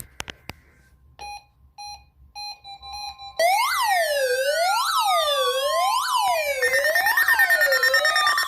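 A few clicks, then four short beeps, then from about three and a half seconds in a loud, dense mix of many electronic siren wails overlapping, with slow falling tones running through them.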